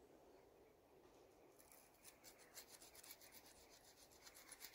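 Faint scratching of a nail file rubbed back and forth between an old engine's distributor contact-breaker points, starting about a second and a half in. The points are being cleaned of corrosion so they can pass a spark.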